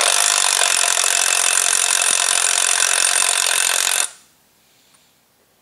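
Pistol-grip power tool running steadily with a high whine for about four seconds, tightening the nut on a Model T engine's camshaft gear, then stopping abruptly.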